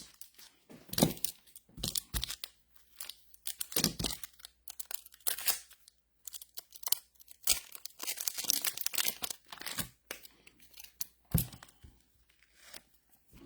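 Thin plastic card sleeves rustling and crinkling in short, irregular bursts as trading cards are handled and slid into them.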